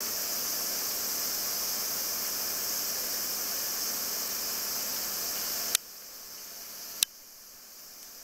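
A steady, high-pitched chorus of insects, likely cicadas, droning without a break. Two sharp clicks come a little over a second apart past the middle, and after each the chorus is noticeably quieter.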